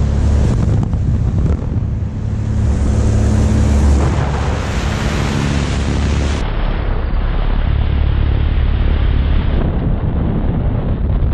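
Loud rush of wind at the open door of a small high-wing aircraft, over the steady drone of its engine and propeller.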